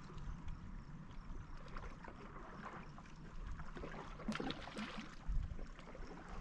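Small waves lapping at a rocky lakeshore, faint. About four seconds in, a small fish tossed back lands in the water with a brief splash.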